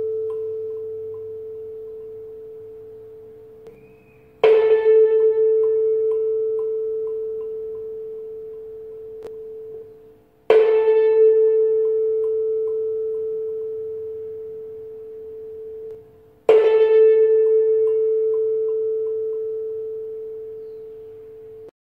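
Tuning fork mounted on a wooden resonance box, struck with a mallet three times about six seconds apart, each strike giving a clear, steady A 440 Hz tone with a bright ring of overtones at first, which fades and is then stopped abruptly. A tone from an earlier strike is already dying away at the start.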